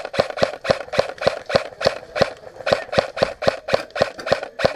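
Krytac CRB airsoft electric rifle firing semi-automatic in a rapid, steady string, about four to five shots a second.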